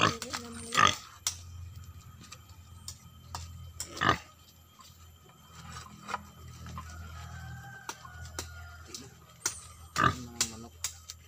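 Several sharp knocks, a few seconds apart, from hands working woven nesting baskets onto a bamboo chicken coop wall, with a couple of short low calls in between.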